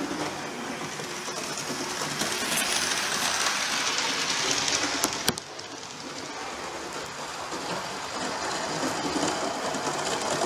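Model railway train running on the track, a steady whir and rattle of motor and wheels that grows louder near the end as it comes closer. A single sharp click about five seconds in.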